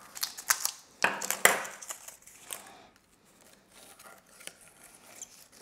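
Potting soil trickling through a paper funnel into a small glass cruet, with light clinks and taps on the glass and rustling of the paper, loudest in the first second and a half. After that, fainter scraping and ticking as the soil is pushed down the narrow neck with a thin stick.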